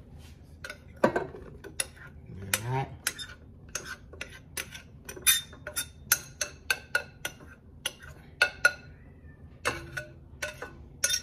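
Glass bowl tapping and clinking against the rim of a stainless-steel stand-mixer bowl as powdered sugar is knocked out of it, a quick series of sharp knocks several times a second.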